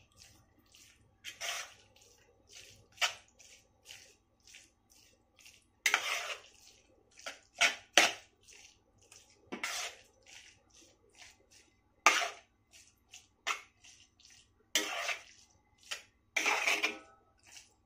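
A metal spoon stirring a wet mix of cooked grated pumpkin and jaggery syrup in a wide metal paraat: irregular wet scrapes and clicks of the spoon against the dish, a few of them longer strokes.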